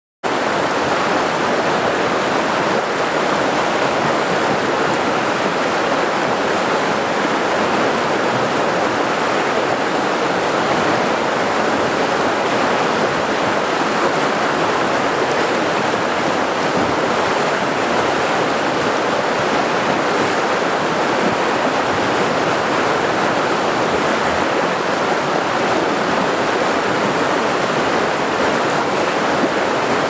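River rapids: fast white water rushing over and around boulders, a steady, unbroken rush of water.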